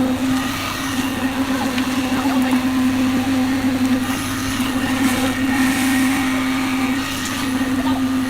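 Concrete mixer running, a steady, even motor hum.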